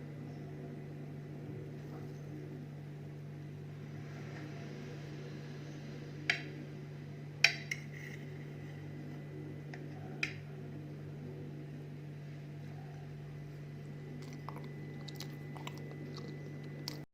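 A few light, ringing clinks like utensils or dishes being touched, four of them spread over the first ten seconds and a few faint ticks near the end, over a steady low hum.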